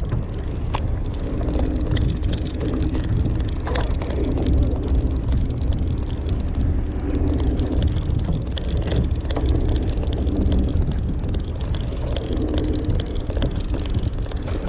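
Steady low rumble of wind and boat noise on the microphone, with a few scattered clicks as a conventional fishing reel is handled and cranked.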